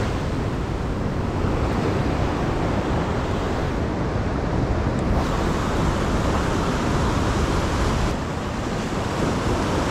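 Ocean surf breaking and washing against a rock ledge, with wind buffeting the microphone; a steady, loud rush that shifts abruptly about five and eight seconds in.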